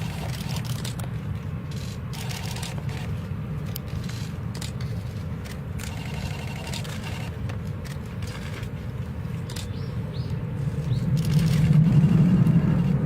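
Distant jet engines rumbling low and steady, swelling louder near the end.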